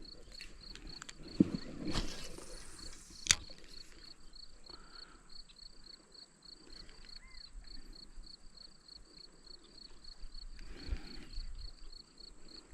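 An insect chirping in a steady, even pulse of about five chirps a second, high-pitched. A few sharp clicks sound in the first few seconds.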